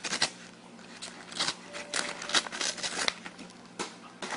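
Paper crinkling in short, irregular crackles as a Persian cat bites and chews on a sheet of it.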